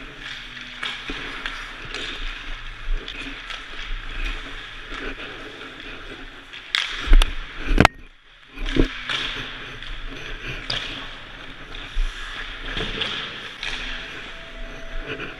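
Ice rink ambience: skate blades scraping the ice, with sticks and pucks knocking throughout and a cluster of sharp hits about seven to eight seconds in.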